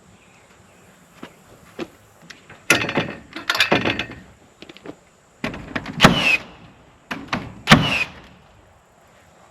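Handling noises: two light clicks, then three bursts of clattering and knocking. The second and third bursts each carry a brief falling squeak.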